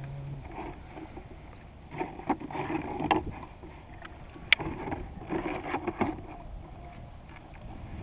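A gloved hand rummaging inside a plastic bucket of water: irregular splashing, scraping and knocking in two spells, with one sharp click about four and a half seconds in.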